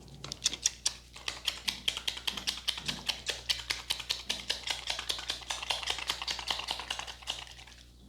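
Hands tapping rapidly and rhythmically on a head and neck in a barber's percussive head massage: light, sharp slaps at about six to seven a second, which stop shortly before the end.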